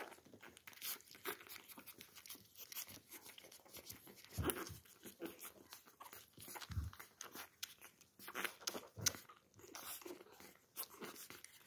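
Puppies suckling at their mother's teats: a faint, irregular run of small wet smacking and clicking sounds. Fur rustles right against the microphone, with a couple of low bumps around the middle.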